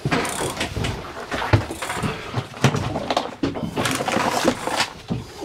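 Fishing reel and tackle clicking and rattling in irregular sharp strikes while a hooked tope is being played on a bent rod.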